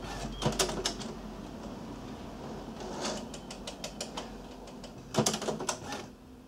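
HP Photosmart C5280 inkjet printer's mechanism clicking in three short rapid bursts: about half a second in, about three seconds in and about five seconds in, over a low steady hum.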